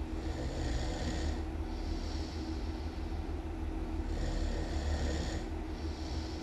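A person snoring really loud, with two slow breaths, each a long rush of rasping air.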